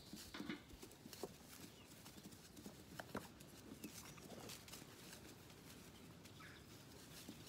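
Faint, scattered clicks and knocks of young Zwartbles lambs shuffling about on a straw-bedded floor during bottle feeding.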